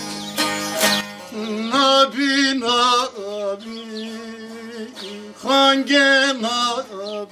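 Folk music: a few sharp strummed strokes on a plucked string instrument, then a wavering, ornamented melody over a steady low drone.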